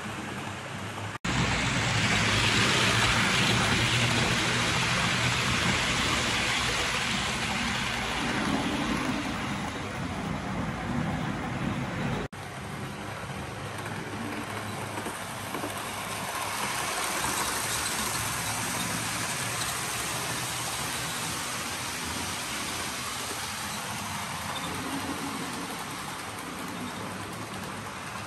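Model trains running on a layout: a steady rushing rumble of wheels on the track and small motors, broken by two sudden gaps, about a second in and about twelve seconds in.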